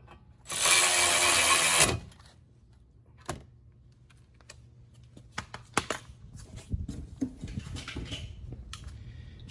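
Electric ratchet running once for about a second and a half, driving in a brake caliper bracket bolt. It is followed by scattered light metallic clicks and taps from tools and parts being handled.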